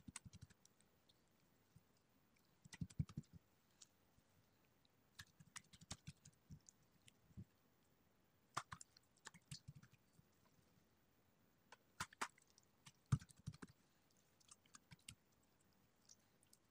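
Clear jiggle-water slime worked by gloved hands on a wooden table: quiet, scattered sticky clicks and crackles as the slime is stretched, lifted and pressed back down, coming in short clusters every couple of seconds.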